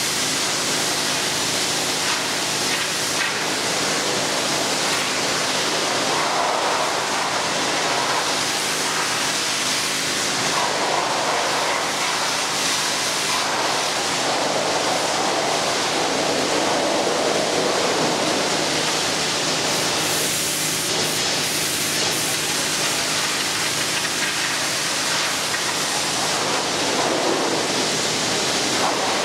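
Pressure washer spraying water in a steady, loud hiss, the spray's tone rising and falling as the jet moves over surfaces, with the washer's pump motor humming steadily underneath.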